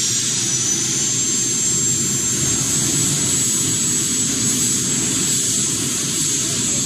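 Jet turbine engine mounted on a minivan running steadily: a high, steady whine over a continuous rushing noise.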